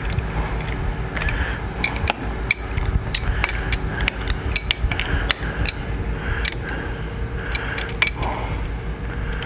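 Sharp, irregular metal clicks of a hand wrench turning the bolt of a handlebar-grip extractor tool, working a heated grip off the handlebar, over a steady low hum.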